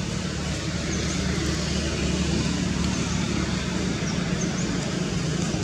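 Steady outdoor background rumble of distant road traffic, with a low hum and faint high chirps recurring about once a second.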